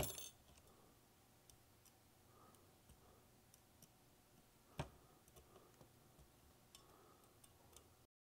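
Near silence with faint small clicks and ticks of tiny metal screws and an Allen wrench being handled on a resin printer vat's clamping frame. There is a short run of clicks at the start and one sharper click about five seconds in.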